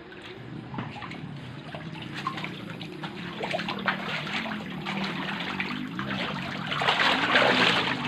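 Many Clarias (lele) catfish thrashing at the surface of a concrete pond: a patter of small splashes that grows louder and busier about seven seconds in.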